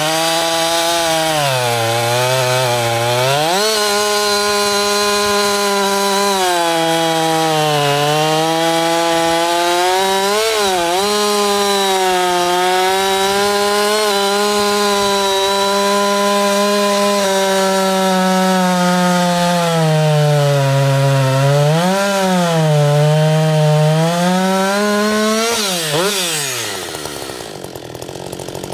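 Husqvarna 560 XP 60 cc two-stroke chainsaw cutting through a large beech trunk. It starts lower in pitch and climbs to full revs after a few seconds, holds a high, steady note with several brief sags and recoveries as the chain loads up in the wood, then falls away to idle near the end as the throttle is released and the saw comes out of the cut.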